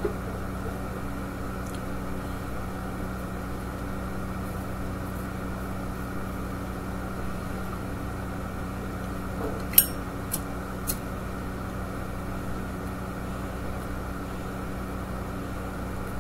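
A Ronson Windlite lighter with a Zippo insert: a sharp metallic click about ten seconds in, then two lighter clicks about half a second apart, as the lid is flipped open and the flint wheel struck to light a pipe. A steady low hum runs underneath.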